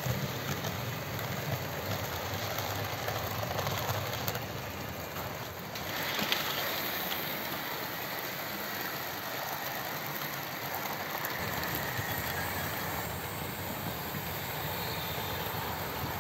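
OO gauge model trains running on a layout: a steady whirr of their electric motors and wheels on the track, swelling a little about six seconds in.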